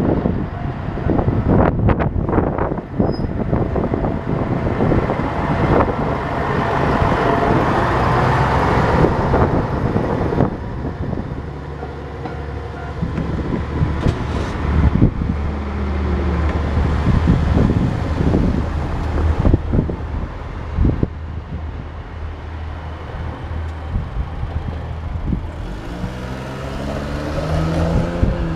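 Vehicle engine noise at a level crossing: deep running engines with scattered knocks and clicks, and an engine rising in pitch as it pulls away near the end.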